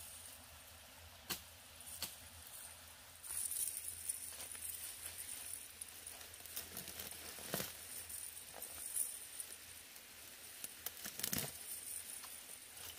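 Small metal coin ornaments on a Hmong costume jingling as the wearer walks, with footsteps and rustling through ferns and undergrowth and a few sharp snaps. The jingling grows louder from about three seconds in.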